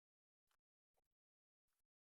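Near silence, broken by three very faint, brief noises.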